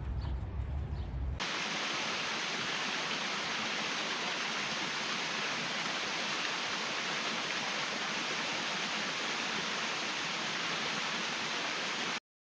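Steady, even rush of water falling in a big waterfall, starting abruptly about a second and a half in and cutting off suddenly near the end. Before it comes a low rumble with a few faint chirps.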